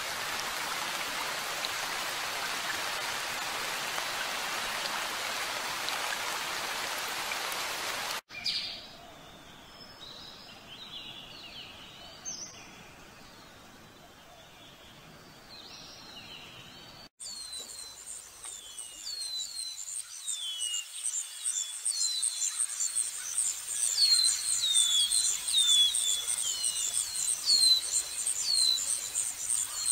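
Nature ambience in three sections that change abruptly: a steady hissing noise, cut off about eight seconds in, then scattered bird chirps. At about 17 seconds these give way to a fast high insect trill and birds' falling chirps repeated every half second or so, growing louder.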